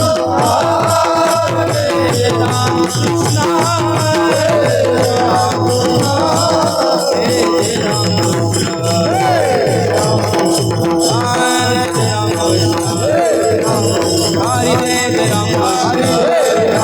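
Devotional kirtan music: a singer's voice in wavering, ornamented phrases over a steady held drone note, with a dense, even rhythm of jingling small hand cymbals and mridang drum strokes.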